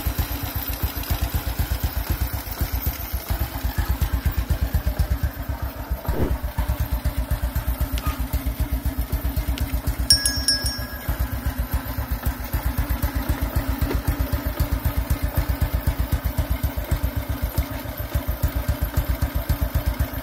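Motorcycle engine idling steadily with an even, fast train of exhaust pulses, running on only its stator, CDI and regulator without a wiring harness: the temporary wiring works.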